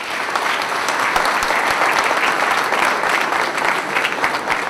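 Audience applauding: many people clapping at once, holding steady throughout.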